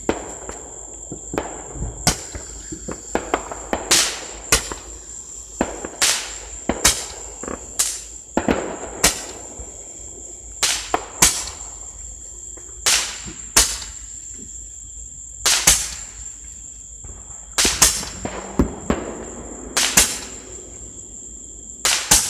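Fireworks and firecrackers going off in sharp, irregular bangs, a couple of dozen in all, some with a short echo after them. Insects trill steadily at a high pitch underneath.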